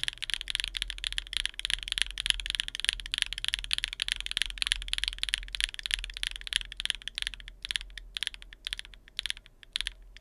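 Fast typing on a mechanical keyboard fitted with factory-lubed WingTree Yunie linear switches, a rapid stream of keystroke clacks with a relatively high pitch. The keystrokes thin out near the end.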